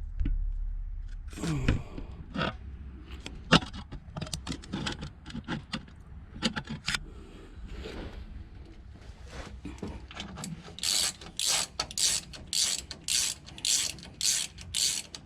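Hand ratchet wrench snugging up differential cover bolts: scattered clicks and scrapes of metal tools at first, then from about two thirds of the way in steady back-and-forth ratcheting strokes, about two a second.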